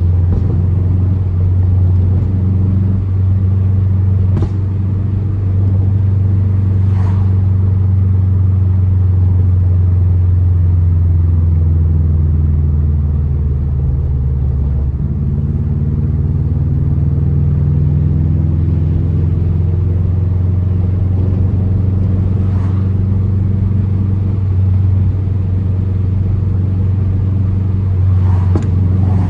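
2004 Subaru WRX's turbocharged EJ flat-four running under way with its deep, uneven boxer rumble through an Invidia aftermarket exhaust. The engine note holds steady, climbs in pitch about halfway through, then settles. A few brief sharp cracks are scattered through it.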